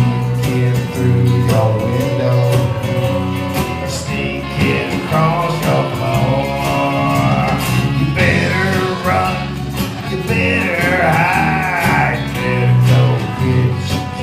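Live rock band playing: bass, drums, and electric and acoustic guitars. From about four seconds in, a high lead line with bending, wavering notes rides over the steady bass.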